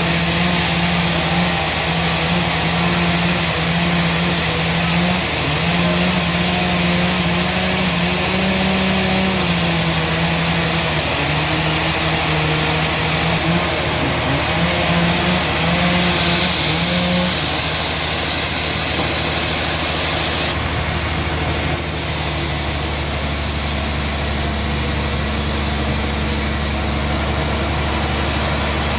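Sawmill engine running steadily and loudly. Its pitch shifts up and down in the first half, then settles. A hiss joins it for a few seconds just past the middle.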